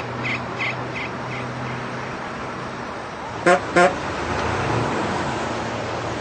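Vehicle horn giving two short toots in quick succession about three and a half seconds in, over a steady engine running. A series of high beeps, about three a second, fades out in the first two seconds.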